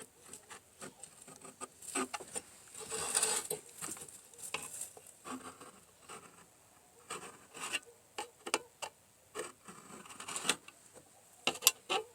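Knife point scratching and scraping marking lines into sheet steel, in short uneven strokes with small clicks from handling the metal. The sharpest clicks come near the end.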